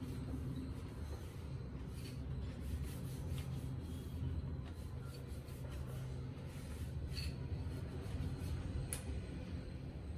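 Cloth rubbing and wiping over a plastic water-purifier cover, with a few faint light ticks and scrapes, over a steady low hum.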